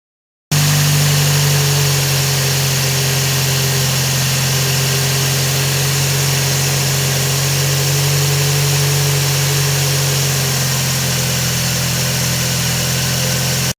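Scion xB engine running steadily with a grinding from its worn-out water pump. It starts abruptly about half a second in and cuts off just before the end.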